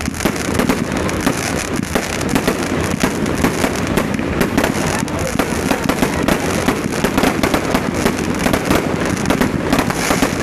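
Fireworks display: aerial shells and crackling effects going off in a rapid, continuous barrage of bangs and crackle, with no pause.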